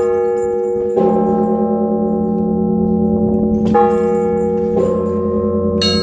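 Russian Orthodox monastery bells ringing. Mid-sized bells are struck one after another, about four strikes, their tones hanging over a steady low hum. A burst of higher, smaller bells comes in right at the end.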